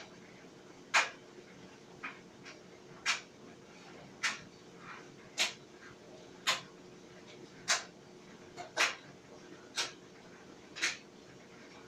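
Clothes dryer running: a faint steady hum with a sharp click about once a second, in an even rhythm.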